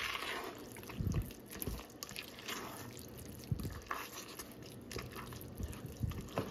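A spoon stirring thick, cheesy macaroni in a stainless-steel pot: irregular soft wet squelches with a few light knocks.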